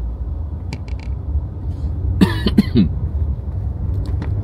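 A short burst from a person's voice, in about three quick strokes a little past two seconds in, over a steady low rumble, with a few light clicks about a second in.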